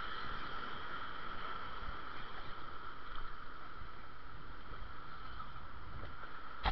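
Ocean waves breaking and washing over sea rocks: a steady rushing of surf.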